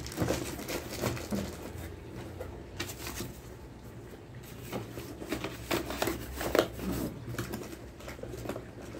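Cardboard box and paper packing being handled: irregular light taps, knocks and rustles, some louder near the end.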